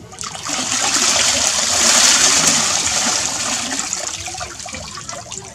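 Water poured from a clay pot over a person's head, splashing down into a shallow pool of water. The rush swells for about two seconds, then slowly tapers off.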